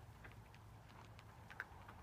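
Faint, scattered small clicks and rustles of Miniature Australian Shepherd puppies chewing on sticks and nosing through grass, the sharpest click about one and a half seconds in, over a low steady background rumble.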